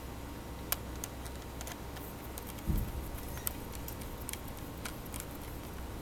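Scattered small plastic clicks and taps as a laptop's memory compartment cover is set back in place and a screwdriver is put to its retaining screw, with one dull thump about two and a half seconds in.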